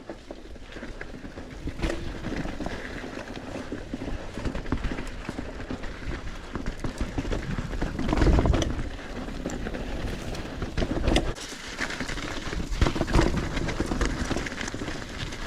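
Mountain bike riding over a rocky trail: tyres crunching and the bike rattling and knocking over rocks, with a loud low rumble about eight seconds in.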